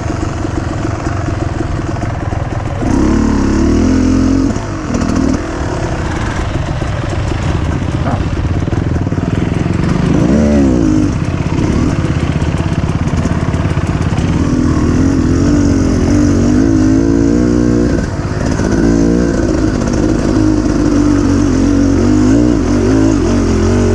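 Dirt bike engine running under way, its pitch rising and falling as the throttle opens and closes, with the clearest revs about ten seconds in and again in the last third.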